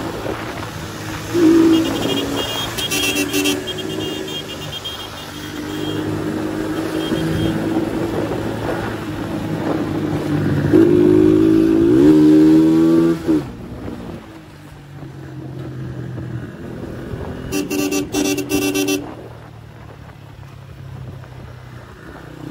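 Kuba CG motorcycle engine running on the move, its note climbing and then dropping around the middle. A vehicle horn sounds briefly a few seconds in and again for over a second near the end.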